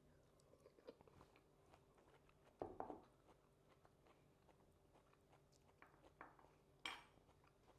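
Faint chewing of a mouthful of raw zucchini salad, with scattered small crunches, a louder burst of crunching about three seconds in and a short sharp sound near the end.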